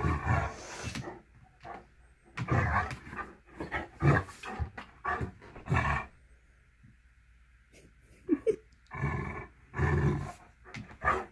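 Long-haired cat growling and hissing in a series of short bouts, the defensive sounds of a cat lying on her back facing a Great Dane whose nose is close to her.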